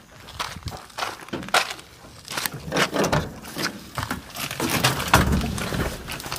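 Scattered knocks, clicks and rustling as someone opens the door of a Mahindra Bolero and climbs in, with handling noise on the phone.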